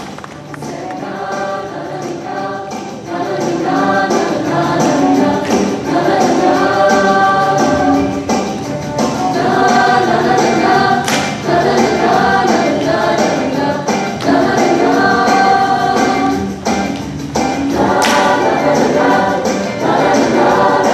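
Mixed-voice show choir singing an upbeat rock and roll number with accompaniment, with a couple of sharp percussive accents.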